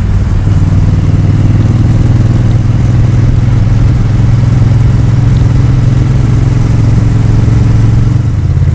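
Honda Rebel 1100's parallel-twin engine running at a steady cruising speed, its tone holding even throughout.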